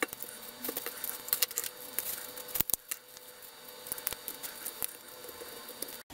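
Small plastic and metal clicks and handling noises as the motor and decoder are lifted out of a model locomotive's tender chassis by hand, with two sharper clicks about two and a half seconds in.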